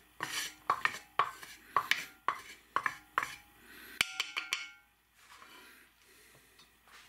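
Wooden spatula scraping and rubbing over the inside of a hot cast-iron roasting pan, spreading oil to season it, in short strokes about two a second. About four seconds in come a few sharp taps of wood on the pan's rim, and the scraping stops.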